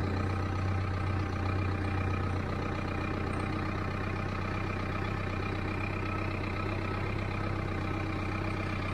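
A vehicle engine running steadily at low speed, with an even low hum.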